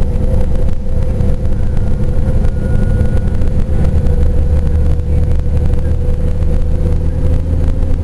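Gillig transit bus running along the road, heard from inside the passenger cabin: a steady low drone with a constant higher tone over it. The low drone grows stronger through the middle few seconds.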